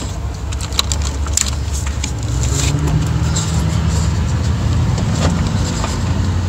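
Light clicks and rattles of the plastic locking levers on a truck's engine computer (PCM) wiring connectors being pushed forward by hand. Underneath runs a low engine hum that grows louder about two seconds in.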